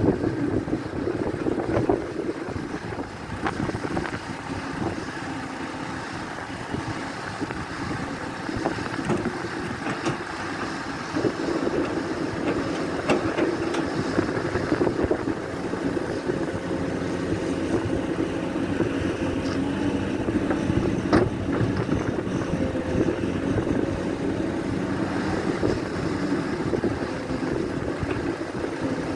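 Caterpillar 336 hydraulic excavator's diesel engine running under load as it digs and loads a dump truck, its pitch rising and falling slightly, with a few sharp knocks, the clearest about two-thirds of the way in.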